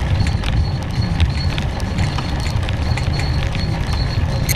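Steady wind and road rumble on a camera carried along a paved road on a moving bike, with many small rattling clicks.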